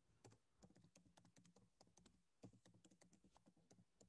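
Very faint clicking of a computer keyboard being typed on, a few keystrokes a second, some harder than others.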